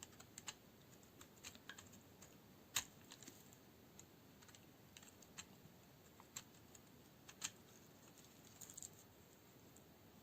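Dry bar soap being cut into cubes: irregular crisp little clicks and cracks as the soap breaks, with a sharper snap about three seconds in and another about seven seconds in.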